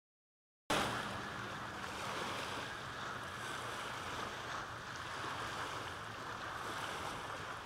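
Steady rush of wind and small waves on open water, cutting in abruptly about a second in.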